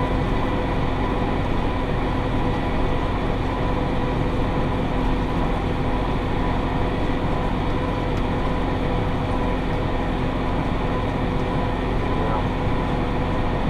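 Massey Ferguson 5610 diesel tractor running steadily under load, pulling a John Deere 468 round baler at speed, heard as an even drone with a constant whine.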